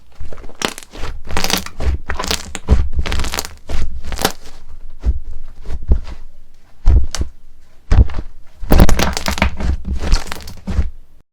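Slime being squeezed and pressed by hand, giving irregular runs of crackling, snapping and popping with soft low thuds. It cuts off suddenly near the end.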